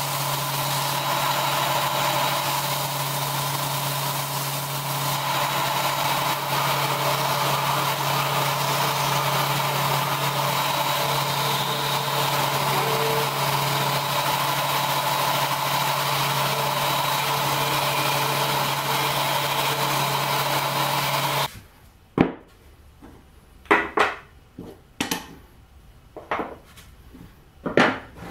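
Combination belt-and-disc sander running steadily while a small wooden block is sanded against it. It stops abruptly about three-quarters through, and a few sharp knocks of wooden pieces being set down on a workbench follow.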